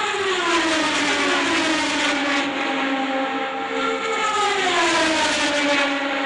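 IndyCar race cars at speed passing one after another. Each high engine note drops in pitch as the car goes by, twice in turn.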